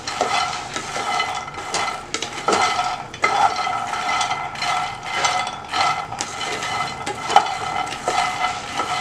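Wooden spatula stirring puffed lotus seeds (phool makhana) roasting in ghee in a pan: the light seeds tumble and scrape against the pan with many small clicks and knocks, several a second.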